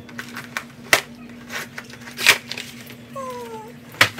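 A cardboard slime kit box handled on a counter: a few sharp knocks and a short scraping rustle about two seconds in.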